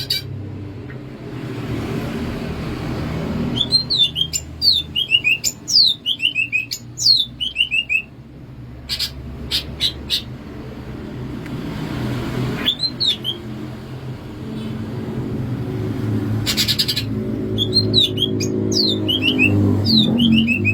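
Green leafbird (cucak ijo) singing: two runs of quick, high, descending whistled notes, with short harsh buzzy bursts between them.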